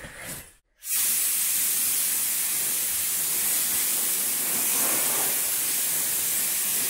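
Compressed-air abrasive blasting gun on a coiled air hose, blasting a stone wall clean with a steady hiss that starts about a second in and holds at an even level.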